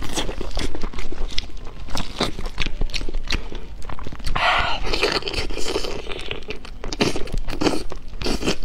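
Close-miked eating of a large blood sausage: a rapid run of wet bites, smacks and mouth clicks as she bites and chews, with a denser stretch of tearing and rustling about halfway through.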